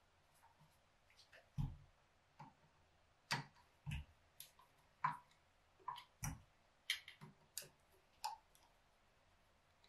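Screwdriver turning screws snug into a carburetor's top: irregular sharp clicks of the tool and metal parts, with a few duller knocks, about a dozen in all with quiet between.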